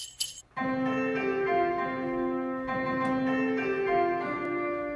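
Intro music: a few jingle-bell shakes at the very start, then a piano-like keyboard melody of held notes.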